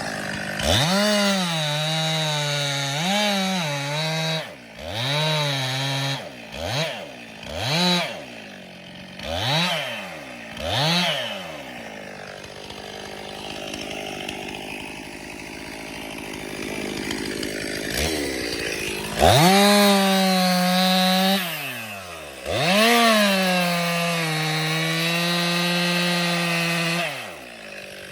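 Two-stroke chainsaw engine, revved up and let back down over and over in short bursts, then left idling lower for several seconds. After that it is held high twice for a few seconds at a time, its revs dipping and recovering as it cuts.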